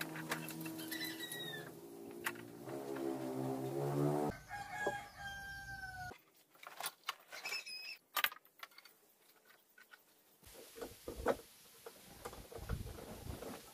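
A rooster crowing and chickens clucking, with gliding, falling calls in the first few seconds. After that come scattered sharp clicks and knocks of steel bar clamps being set and tightened across glued wooden boards.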